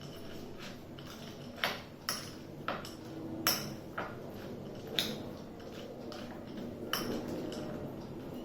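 Cutlery clinking and knocking against a bowl while stirring crumbs into a thick gravy, about seven sharp irregular clinks over soft scraping.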